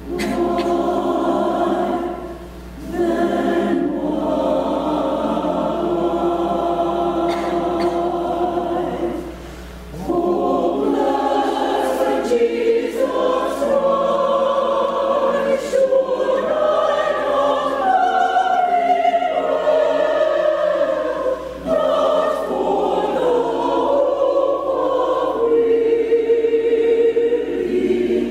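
Church choir singing an anthem in long held chords, with two brief pauses in the first ten seconds.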